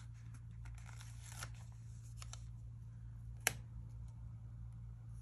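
Stickers and planner paper being handled by hand: faint rustling and light ticks, with one sharp click about three and a half seconds in.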